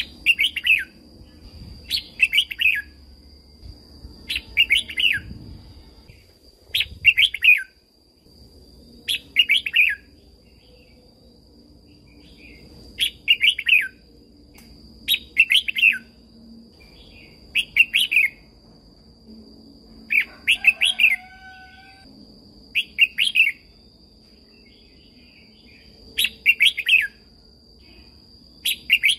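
Red-whiskered bulbul singing: short, bright whistled phrases repeated about every two seconds. A faint steady high-pitched tone runs underneath.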